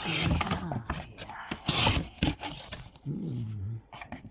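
A sneaker box being opened and its contents handled: two loud rustling scrapes of cardboard and paper, one at the start and one about two seconds in, with low drawn-out vocal sounds at the start and again about three seconds in.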